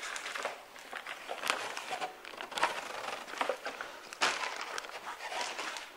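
Irregular crinkling and rustling of a plastic-wrapped pack of water bottles and an exercise mat being handled and set down on the floor, with one sharper knock about four seconds in.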